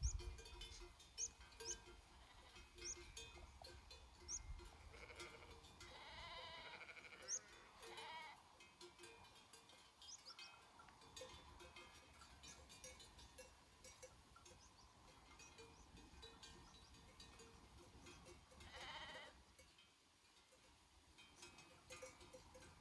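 Faint sheep bleats from a grazing flock, a few calls between about 5 and 8 seconds in and one more near 19 seconds, with the flock's bells clinking softly.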